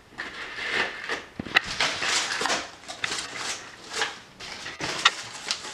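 A crumpled ball of paper being pulled open and flattened by hand, crinkling and crackling in irregular bursts with a few sharp snaps.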